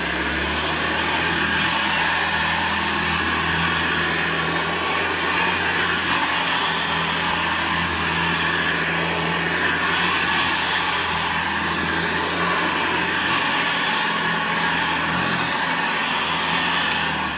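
Hoover Convertible Model 36 upright vacuum cleaner running steadily, its motor and fan giving a loud even hum with a rushing whir. A small click comes near the end.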